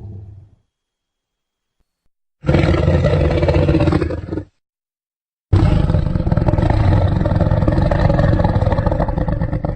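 Kaiju monster roar sound effects for a Millennium-style Titanosaurus. There are two separate roars: a short one of about two seconds, then after a second's pause a longer one of about four seconds that cuts off abruptly. The tail of an earlier roar dies away in the first half second.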